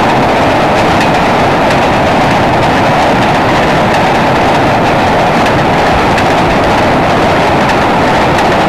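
Freight cars rolling across a steel trestle bridge on jointed rail: a steady, loud rumble with faint, scattered clicks of wheels crossing the rail joints.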